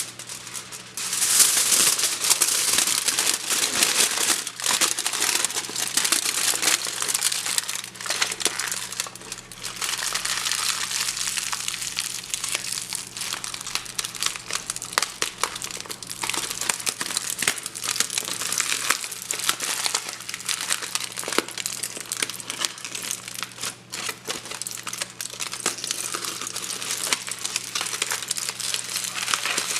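Foley campfire sound: material crinkled and crumpled close to the microphone, making a dense crackle of small snaps that imitates a fire burning. It starts about a second in and keeps going, swelling and easing off.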